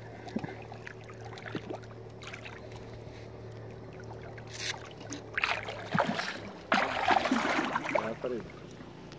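Wels catfish splashing at the surface beside the boat as it dives away after release, with loud splashes in the second half. A low steady hum runs underneath for most of it.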